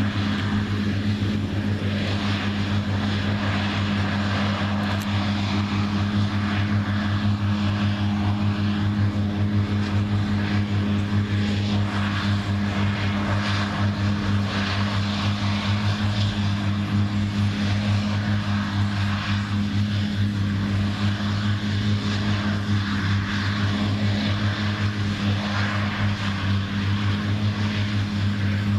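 New Holland CR9060 twin-rotor combine running steadily while harvesting soybeans: a constant drone with a strong, even low hum.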